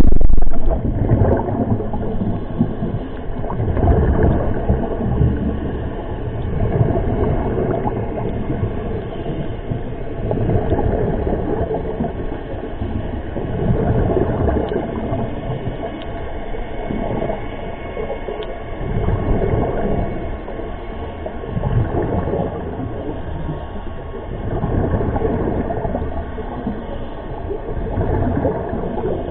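Scuba diver's regulator breathing, heard muffled underwater: exhaled bubbles gurgling in slow swells every three or four seconds.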